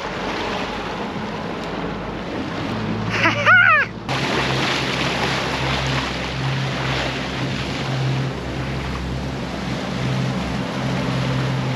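Twin Yamaha 300 outboards running steadily with a low drone as the boat runs under way, water rushing and spraying along the hull, with wind on the microphone. About three seconds in, a brief loud sound sweeps up and down in pitch over wind and waves, before the running sound starts suddenly.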